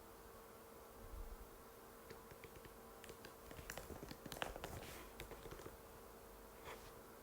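Typing on an Apple MacBook butterfly keyboard: quiet, short key clicks, a few scattered at first, then a quicker run from about three to five and a half seconds in.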